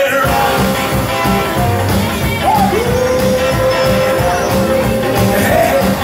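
Live rockabilly band playing: a male singer over acoustic guitar, electric guitar, upright bass and drums, with a steady walking rhythm. A long held note comes in with a short upward slide about three seconds in.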